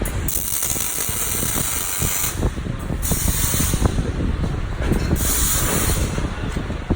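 Three bursts of hissing, each a second or two long with sharp starts and stops, over a continuous crackling din of welding-shop work.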